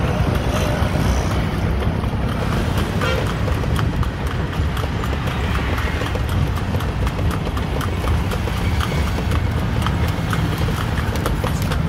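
Hooves of the small horse pulling a two-wheeled tonga clip-clopping on the road at a steady trot, over a constant low rumble from the ride.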